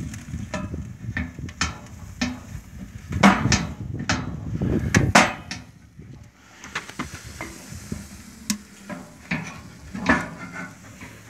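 Irregular clanks and knocks of steel as the firebox door and latch of a homemade smoker are handled, a few of them sharper and louder.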